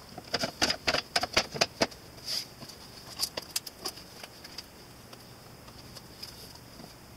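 Small hardwood end-grain blocks of maple, walnut and padauk clacking against one another as they are set into place: a quick run of sharp knocks in the first two seconds, then fewer and further apart, dying out after about four and a half seconds.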